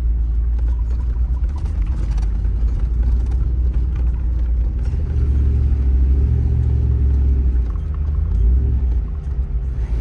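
Toyota RAV4 driving on a dirt trail, a steady low rumble of engine and tyres.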